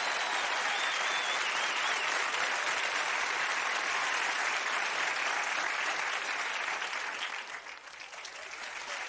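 Studio audience applauding, a dense steady clapping that thins out about seven seconds in before picking up slightly again.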